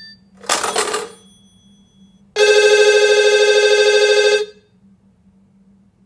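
Telephone bell ringing: a short rattling burst about half a second in, then one loud ring of about two seconds with a fast trill that stops abruptly.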